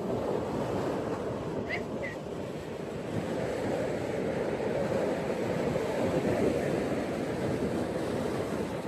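Ocean surf washing on a beach: a steady rush of breaking waves that swells slightly a few seconds in. Two faint, short high chirps come about two seconds in.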